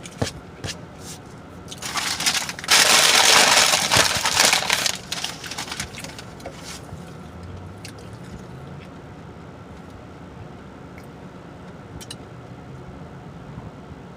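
Orange juice being drunk: a loud, noisy slurp lasting about three seconds, starting about two seconds in. Light clicks and handling sounds come before and after it.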